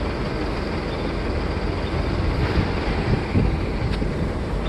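Container truck (articulated lorry with trailer) driving past on the road, a steady low rumble with wind buffeting the microphone.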